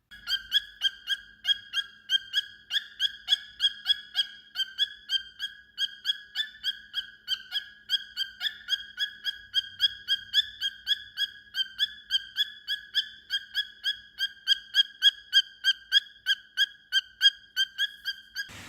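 Cockatiel giving a short call over and over, about three times a second, each call at the same clear pitch.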